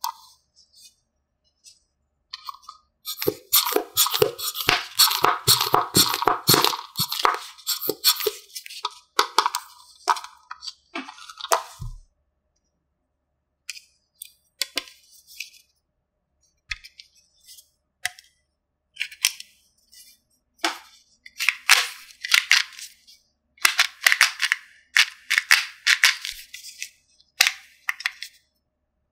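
Small plastic toy pieces clicking and rattling as they are handled: a fast run of clicks and rattles from about three seconds to twelve, then scattered clicks and short rattles.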